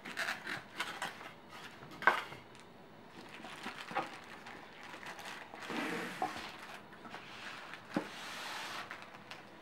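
A cardboard shipping box being unpacked by hand on a wooden table: scattered knocks and taps of cardboard, the loudest about two seconds in, and later two longer stretches of rustling plastic packing.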